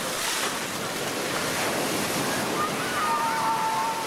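Ocean surf breaking and washing up a beach, a steady rushing noise. Near the end a voice calls out briefly.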